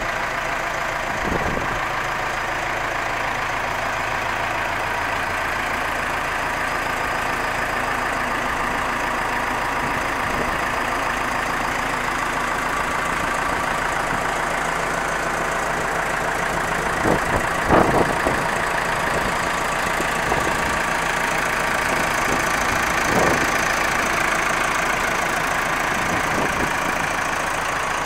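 Massey Ferguson 5445 tractor's four-cylinder diesel engine idling steadily, with a few brief knocks a little past halfway.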